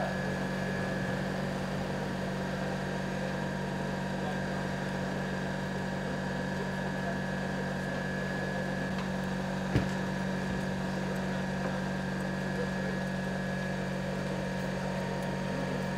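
Steady low mechanical hum with a thin high whine over it, unchanging throughout, and a single sharp click about ten seconds in.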